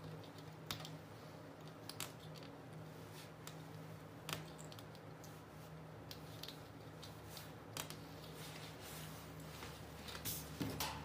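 Sparse, light, irregular clicks of thread being wound around the small nails of a string art board, the thread catching and slipping on the nail heads, over a faint steady hum.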